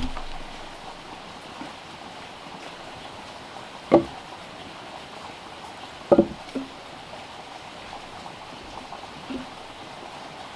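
A heavy log knocking against the logs beneath it as it is rolled and shifted by hand: two sharp wooden knocks about four and six seconds in, then a couple of lighter knocks, over a steady background hiss.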